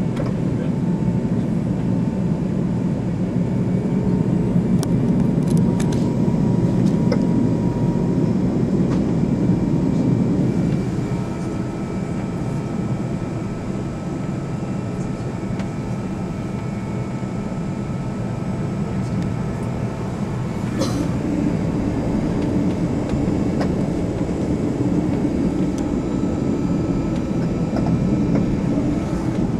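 Steady low rumble inside the passenger cabin of an Air France Airbus A380 taxiing with its Engine Alliance GP7200 engines at idle, a little quieter for several seconds in the middle, with a few faint clicks around five seconds in and again near twenty seconds.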